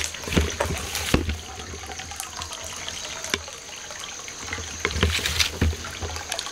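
Water trickling steadily, with scattered small clicks and an intermittent low rumble.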